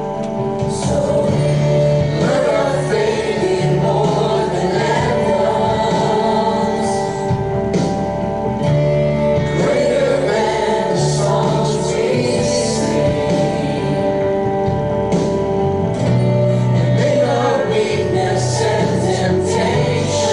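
Live worship music: singers over sustained keyboard chords and a bass line that changes every couple of seconds.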